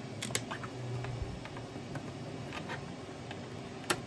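Faint clicks and small plastic ticks of a 3D-printed part's tree supports being worked by hand, then one sharp snip just before the end as a support is cut through with cutting pliers.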